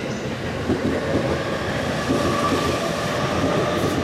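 E231-series electric commuter train accelerating away from the platform: a steady rumble of wheels on rail with irregular clattering, and a steady whine that comes in about halfway through.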